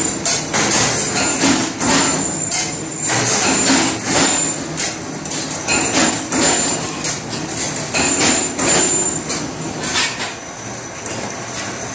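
Roller tube bending machine clanking and rattling as a stainless steel tube is worked through its rollers, with repeated sharp metallic knocks and short high squeaks.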